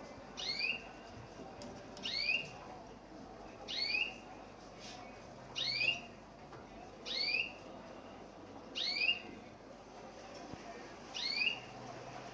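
White domestic canary giving a short rising call over and over, seven times, one every one and a half to two seconds.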